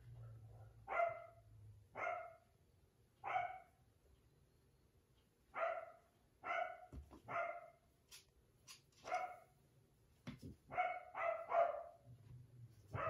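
A 4½-week-old puppy barking in short, high yips, about ten of them: single barks a second or so apart, then a quick run of three near the end.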